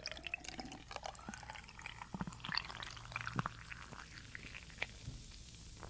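Malt drink poured from a bottle into a glass, the pitch of the pour rising as the glass fills, with many small clicks and pops.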